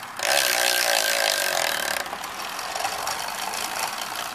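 Rear hub of a Xentis Mark 1 carbon wheel freewheeling at speed: a loud, fast ratcheting buzz from the freehub pawls with a wavering pitch. It starts suddenly just after the beginning and eases a little about halfway through.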